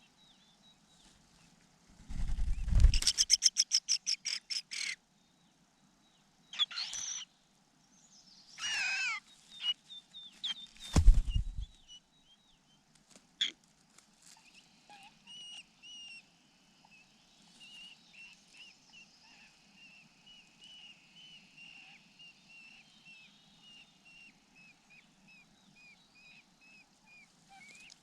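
Birds at a nest. A loud burst of rapid, repeated chirping over a low rumble about two seconds in, gliding calls a few seconds later, and a second low thud around eleven seconds. A long run of quick, fainter chirps follows.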